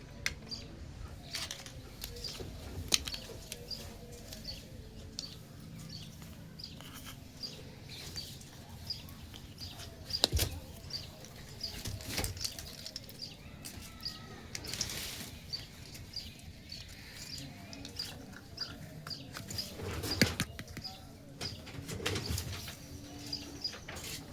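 Plastic toy kitchen pieces handled and set down, with scattered sharp clicks and taps, loudest around 10 s, 12 s and 20 s in. A high bird chirp repeats about twice a second behind it.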